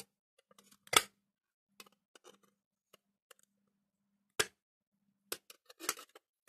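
Circlip pliers clicking as they are handled and worked: a sharp click about a second in, another a little past four seconds, and a few lighter clicks near the end.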